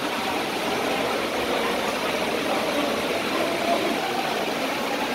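Heavy rain on the roof of an indoor sports hall: a steady, even rush of noise loud enough to drown out spoken commands.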